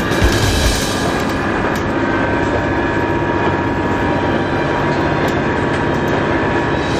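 JR Shikoku 2000 series diesel railcar running at speed, its engine and wheels on the rails making a steady, continuous noise.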